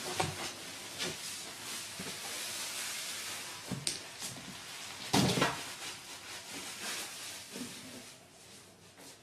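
A cat scuffling in a cardboard box: scrapes and knocks over a steady hiss, the loudest knock about five seconds in.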